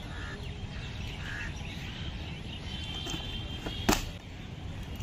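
Steady low outdoor background noise with a few short bird chirps, and one sharp click about four seconds in as the cardboard toy box is handled.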